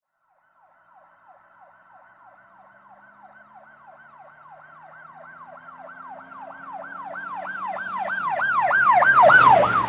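Emergency vehicle siren in a fast yelp, about three sweeps a second, starting faint and growing steadily louder as it approaches, loudest near the end.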